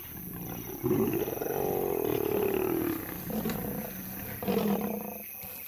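Lions snarling and roaring at each other in a fight: a long call that sinks slightly in pitch from about a second in, and a shorter one near the end. Lionesses are facing off against a charging male lion.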